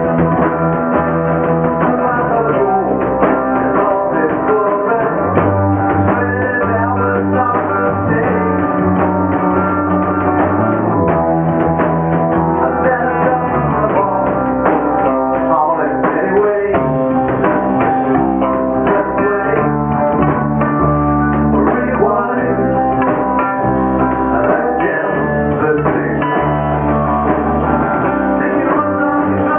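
A rock band playing loud together: a Stratocaster-style electric guitar, a bass guitar holding long low notes, and a Pearl drum kit.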